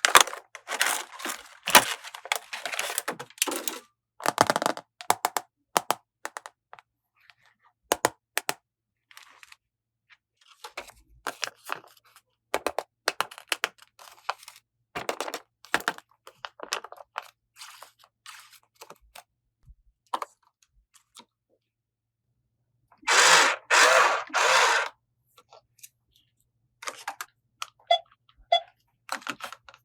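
Small plastic toy pieces being handled and unwrapped: irregular clicks, taps and crackles, with three louder crinkling rustles in a row about 23 seconds in.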